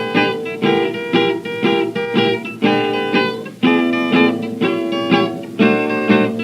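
Guitar playing a country blues introduction on a 1931 78 rpm record, plucked notes in a steady bouncing rhythm, with no deep bass.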